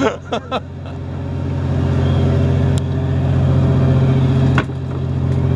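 A fishing boat's engine running, a steady low hum that grows louder over the first few seconds, with a sharp knock a little past halfway through.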